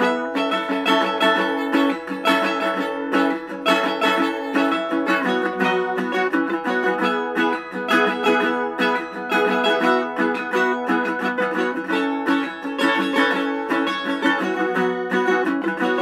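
A 1929–30 National Triolian resonator mandolin being picked: a busy, continuous run of plucked single notes and chords.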